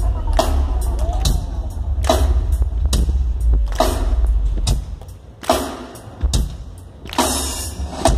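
Live rock band playing through the stage PA: heavy bass under drum hits that land about every second, the bass dropping out about five seconds in, leaving sparser hits.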